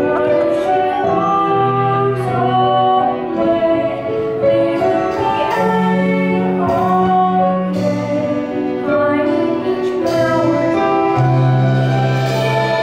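A boy's solo voice singing a musical-theatre song over instrumental accompaniment, with long held notes.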